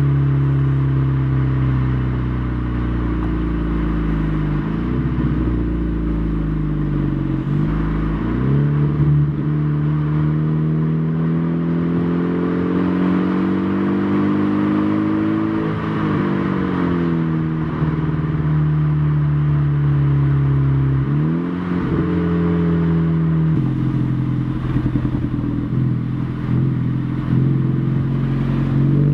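Turbocharged 2.0-litre four-cylinder of a Stage 2 VW Golf GTI Mk6 with a 3-inch catless downpipe and Magnaflow cat-back exhaust, heard from inside the cabin while driving. The exhaust note climbs in pitch as the car accelerates and falls back sharply several times at gear changes, with a choppy, uneven stretch near the end.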